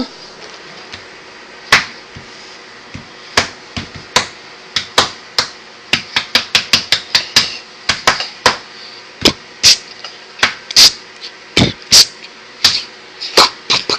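A series of sharp knocks. A few come spaced out at first, then more quickly, about two or three a second, from about six seconds in.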